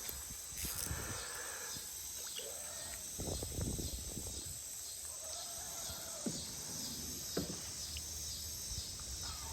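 Outdoor creek-side ambience: insects chirping steadily in an even, repeating rhythm, with a few faint calls and scattered small clicks and knocks.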